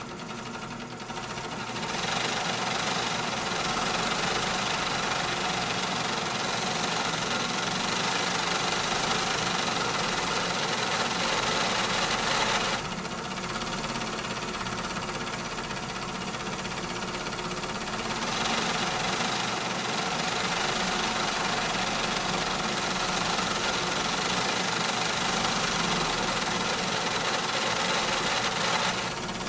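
Factory machinery running steadily: a dense mechanical din. It gets louder about two seconds in, drops somewhat near the middle and rises again a few seconds later.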